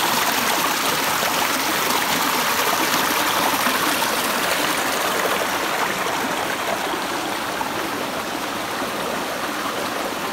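Shallow rocky stream babbling over stones, a steady rush of running water that grows a little fainter in the second half.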